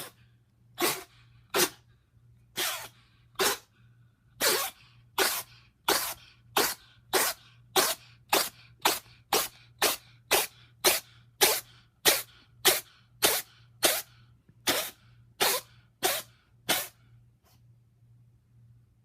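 A cat sneezing over and over, more than twenty sharp sneezes in quick succession, roughly one every half second to a second, before stopping near the end. The fit of sneezing comes from the sinusitis the owner describes.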